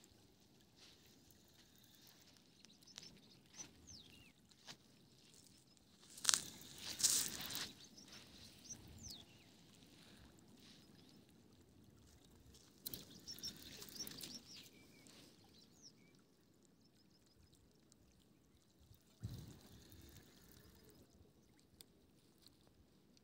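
Quiet lakeshore ambience: faint water and a few high bird chirps, broken by several brief noisy bursts, the loudest about six to eight seconds in.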